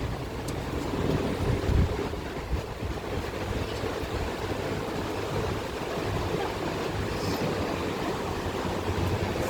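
Steady rushing wind noise on the microphone, with a low rumble underneath.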